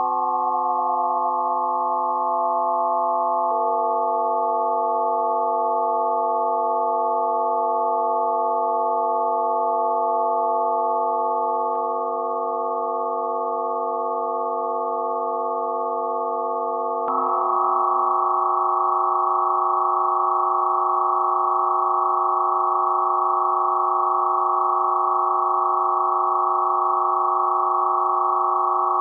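Electronic drone of pure sine tones synthesized in Max/MSP: a chord of several steady tones held together, one of them gliding down in pitch over the first couple of seconds. About 17 seconds in it switches abruptly, with a click, to a new, denser cluster of tones that then holds steady.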